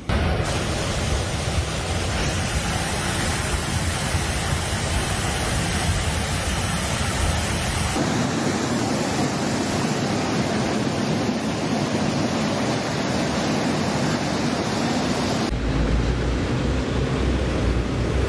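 Loud rushing of floodwater mixed with wind noise on the microphone. It changes abruptly about eight seconds in and again near the end, with a heavier low wind rumble in the last part.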